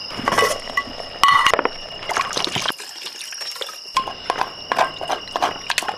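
Clicks and clinks of a spoon working in a bowl of stew, with liquid sounds from the broth; the loudest clink comes just over a second in. Crickets chirp steadily throughout.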